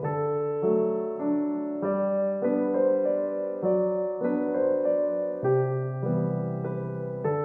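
Background piano music: a slow melody of held notes, changing about every half second.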